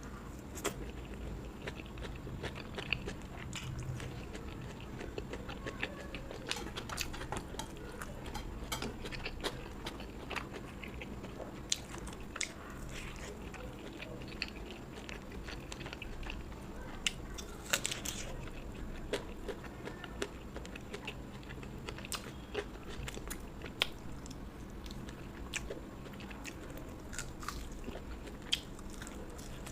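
Close-up chewing and biting of food, with frequent short, crisp crunches scattered irregularly throughout.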